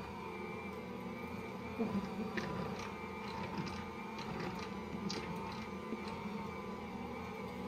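Electric stand mixer with a rotating bowl and dough roller, running steadily as it kneads bread dough in its first mixing cycle. A few light clicks can be heard over it.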